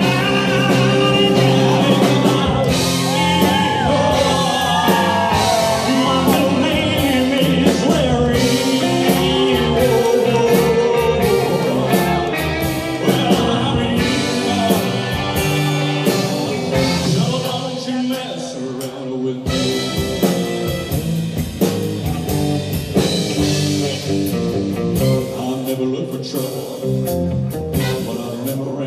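Live rock and roll band playing, with electric guitars, bass, drums and keyboards, under a male lead vocal.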